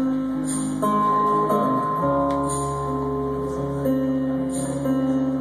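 Instrumental passage of an indie folk song: acoustic guitar strummed chords, changing about every second, with no singing.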